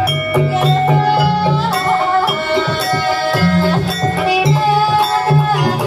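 Banyumasan gamelan music accompanying a kuda kepang (ebeg) dance: struck metal keyed instruments ring out sustained notes over a repeating low beat.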